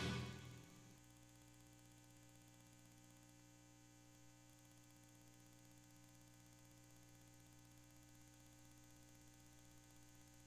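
The tail of the show's theme music fades out within the first second, then near silence with a faint, steady electrical mains hum.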